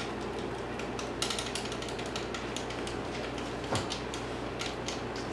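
Game controller buttons and thumbsticks clicking quickly and irregularly under a player's thumbs, with one sharper click near the end, over a steady low room hum.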